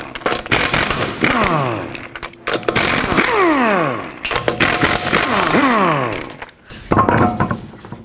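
Pneumatic impact wrench spinning off 19 mm lug nuts in three long bursts, each ending in a falling whine.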